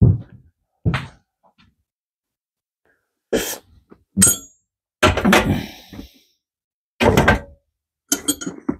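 Metal engine parts and tools being handled off to one side: a string of separate knocks and clatters, with one brief metallic ring about four seconds in.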